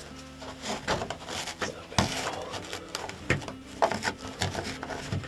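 Cloth towel being spread, rustled and pressed against the fabric wall of a ground blind by hand, with a series of short handling noises and a few sharp knocks, the sharpest about two seconds in and again near four seconds.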